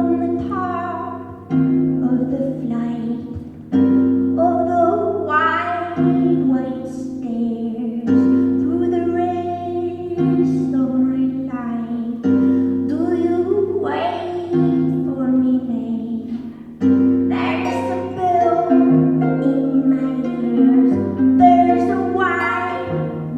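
Pedal harp played solo, deep bass notes plucked every few seconds under rising arpeggiated runs in the upper strings.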